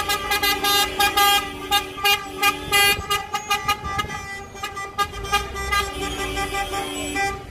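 Celebratory car horns of a wedding convoy honking over and over: many short, rapid toots over held blasts, with a lower held horn in the first couple of seconds and again near the end.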